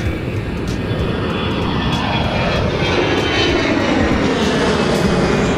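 Twin-engine jet airliner's engines at takeoff power as it climbs out and passes overhead, a steady loud rush with a whine that falls in pitch as it goes by.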